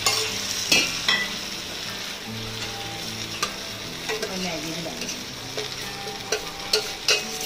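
Vegetables sizzling in hot oil in a kadai as boiled macaroni and cooked Maggi noodles are tipped in, with a steady hiss and scattered clicks and scrapes of spoon and steel bowl against the pan.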